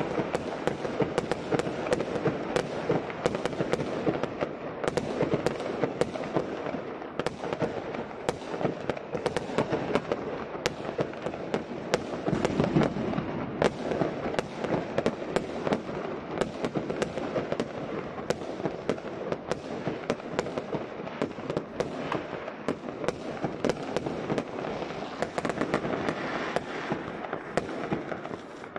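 Many fireworks going off at once: aerial shells bursting in a dense, unbroken string of bangs and crackles.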